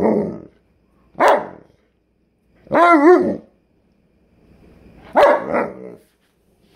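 Alaskan Malamute 'talking': four short pitched bark-like calls about a second and a half apart, the third wavering up and down in pitch.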